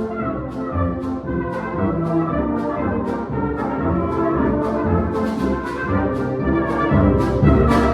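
Orchestral music with prominent brass and a steady beat, getting a little louder near the end.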